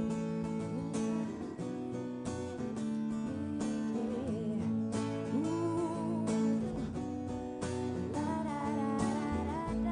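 Acoustic guitar strumming chords in a steady rhythm as a song's intro, with a wavering melodic line over it from about four seconds in.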